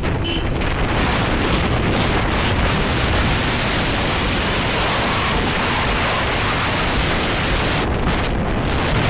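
Wind rushing over the microphone of a camera on a moving vehicle: a loud, steady roar.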